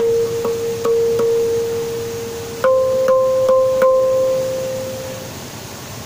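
Background music of slow plucked notes: one note re-struck several times, then a slightly higher note struck a few times and left to fade.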